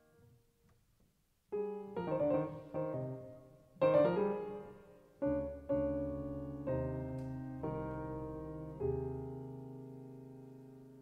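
Solo piano playing a contemporary classical prelude or fugue live. A chord dies away into a short pause, then a string of loud struck chords follows about a second apart. The last chord is held and left to ring out.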